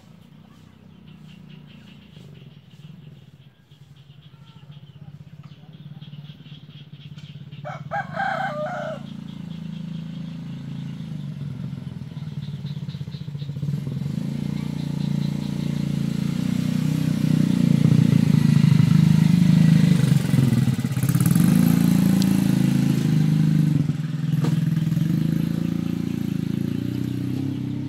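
A rooster crows once, about eight seconds in. Then a low vehicle engine rumble builds over several seconds and stays loud.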